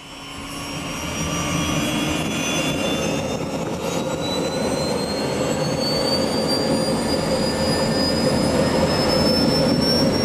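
Eurocopter EC120 Colibri's Turbomeca Arrius turboshaft spooling up during start, as the main rotor gathers speed. A high turbine whine rises steadily in pitch over a low rumble, getting louder over the first second or two.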